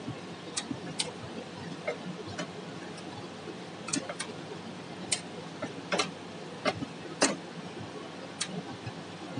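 Automatic chain making machine running: a steady mechanical hum with sharp, irregular metallic clicks about once or twice a second as its tooling forms wire into chain links.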